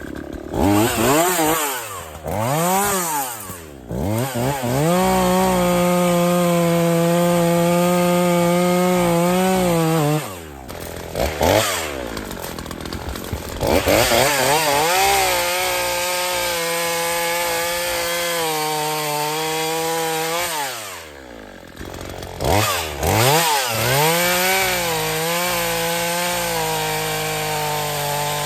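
Craftsman 18-inch gas chainsaw revving up and held at high speed through three long cuts, dropping back toward idle in between, with a few short throttle blips.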